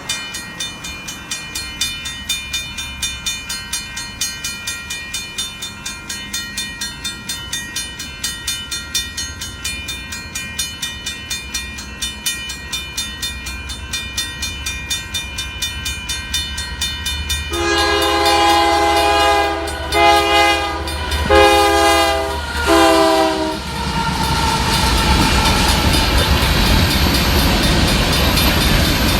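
Grade-crossing bell ringing in a steady rapid rhythm while a Union Pacific diesel locomotive approaches, its low engine rumble growing. About two-thirds of the way in, the locomotive's horn sounds four blasts, the first the longest. The locomotive and coal cars then pass with a loud continuous rumble of engine and wheels on rail.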